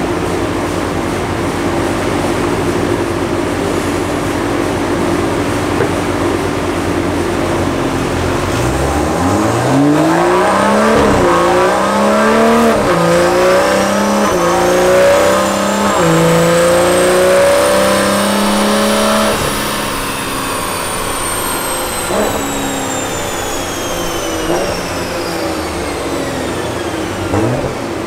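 BMW B58 turbocharged 3.0-litre inline-six with a catless downpipe and stock exhaust, running steadily at first. About eight seconds in it goes to full throttle and revs climb hard, with several upshifts that each drop the pitch. Past the halfway point the throttle closes, and a high whine that rose with speed falls away as the car coasts down on the dyno.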